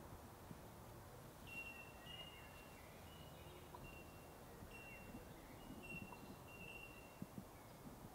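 Near silence: faint field ambience with a high, steady-pitched chirp of about half a second repeating roughly once a second.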